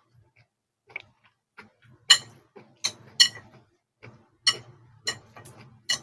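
A person eating fried noodles close to the microphone: soft chewing sounds and a run of about seven sharp clicks and clinks from about two seconds in.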